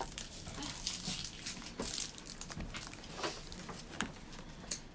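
Scattered light clicks and taps from handling disposable chopsticks and a plastic bento tray.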